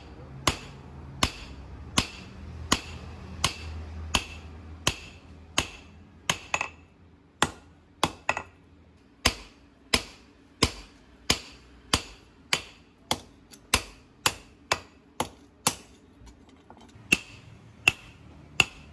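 Hand hammer striking a red-hot steel knife blade on a railway-rail anvil: steady blows about one and a half a second, each with a short metallic ring. The blade is being drawn out by hand, thinning from the tang toward the tip.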